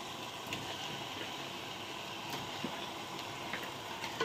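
Steady hiss of masala curry cooking in a steel pot on the stove, with a few faint clicks.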